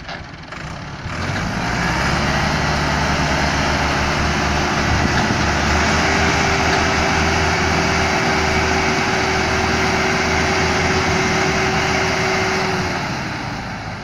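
Massey Ferguson 375 tractors' diesel engines working hard under heavy load, trying to drag a loaded trolley stuck in sand, with the drive wheels spinning. The engine sound builds about a second in, holds loud and steady, and eases off near the end.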